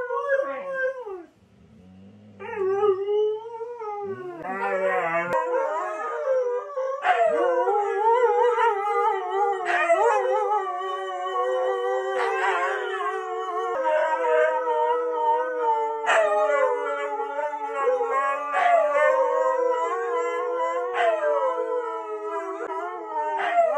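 Three huskies howling together, several long overlapping voices sliding up and down in pitch, after a brief lull about two seconds in.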